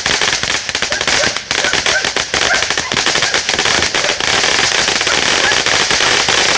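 A lit ground firework going off without a break, a dense rapid crackling over a steady hiss.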